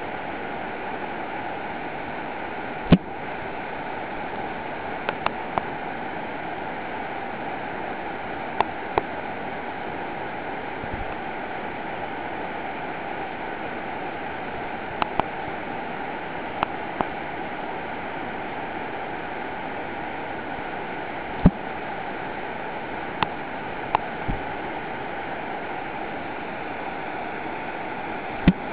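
Steady rush of a whitewater mountain river tumbling over boulders in its rapids, with about a dozen sharp clicks scattered through it, some in quick pairs.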